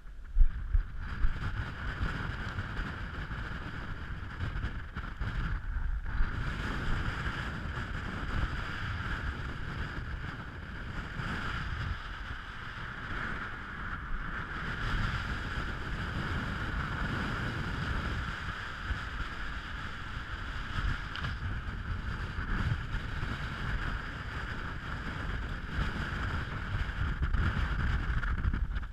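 Strong wind buffeting the microphone with a steady low rumble, over rustling of tent fabric as a dome tent is taken down.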